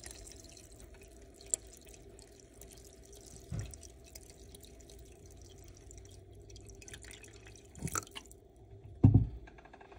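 Water dripping into a rice cooker's inner pot of freekeh, with a few knocks, the loudest about nine seconds in.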